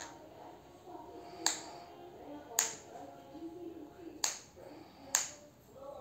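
A series of sharp, dry clicks, about five of them, spaced roughly a second apart, over a faint background murmur.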